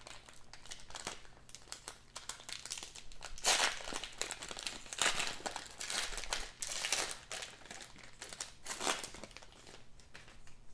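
Foil wrapper of a trading card pack crinkling and tearing as it is ripped open by hand, in irregular bursts that are loudest through the middle.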